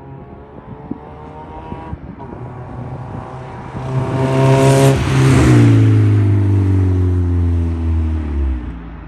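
A car drives past close by. Engine and tyre noise build to a peak about five seconds in, then the engine note drops as it goes away.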